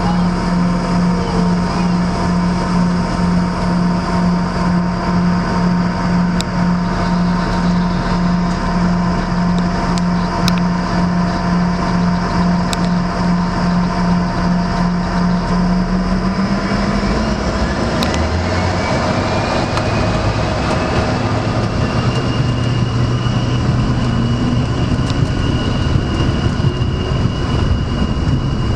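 Airliner's jet engines heard from inside the cabin while taxiing: a steady low hum, then a little over halfway the engine note changes and a whine rises in pitch for several seconds and holds as thrust is increased.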